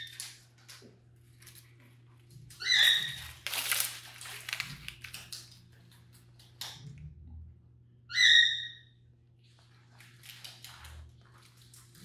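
Blue-and-gold macaw giving two short, loud calls, about three seconds in and again about eight seconds in. In between comes crackling and crunching as it works at leafy twigs on its perch with its beak.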